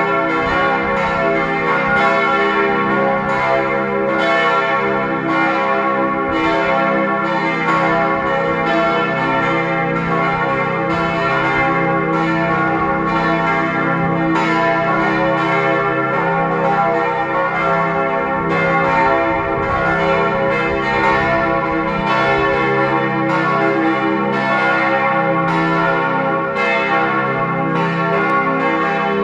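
Church bells pealing from the stone bell tower of a Catholic church. Several bells ring together with overlapping strikes, loud and steady without a break.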